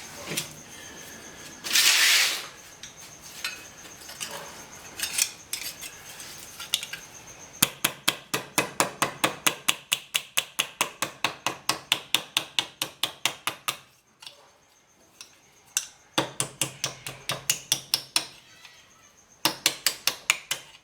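Hammer beating a steel repair panel into shape, struck in quick even runs of about four blows a second, with a few scattered knocks and a short burst of noise before the runs begin.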